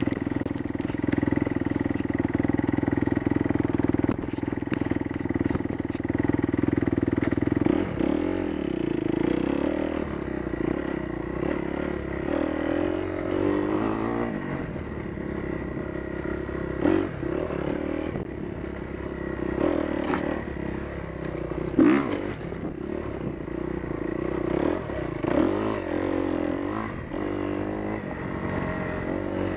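Kawasaki KX250F four-stroke single-cylinder motocross engine running while riding: held steady for the first several seconds, then revving up and down. A few sharp knocks and clatter break in over the second half.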